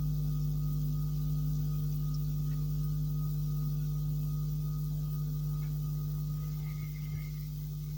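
A steady low electronic drone with several fainter higher tones above it, held and slowly getting quieter, with a small tick about seven seconds in.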